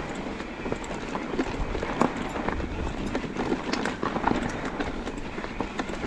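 Mondraker Crafty electric mountain bike rolling down a rocky singletrack: tyres crunching over loose stones, with frequent irregular clicks and knocks as the wheels hit rocks.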